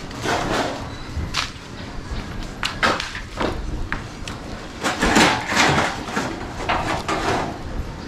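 A cleaver and a kitchen knife chopping raw pork on wooden cutting boards: irregular sharp knocks.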